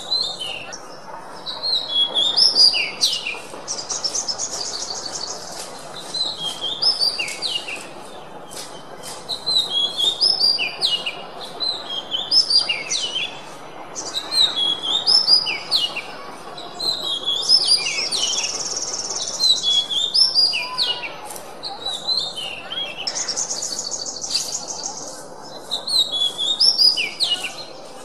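Oriental magpie-robin (kacer) singing: short phrases of clear whistled notes repeated every two to three seconds. Three fast, rattling trills are mixed in, about four seconds in, near eighteen seconds and near twenty-three seconds, over a steady background hiss.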